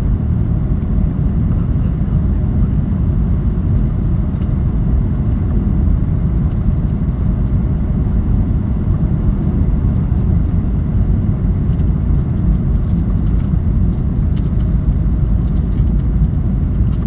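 Steady low rumble of an airliner's engines and rushing air, heard from inside the cabin on its landing approach.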